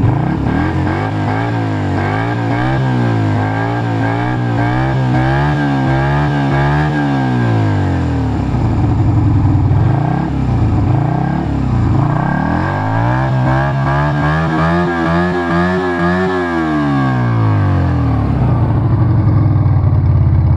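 Yamaha Virago 125's small four-stroke V-twin revved twice through mufflers drilled with six 10 mm holes each. Each time the revs climb, hold for several seconds and fall back to idle. The drilled exhaust gives it a deep rumble.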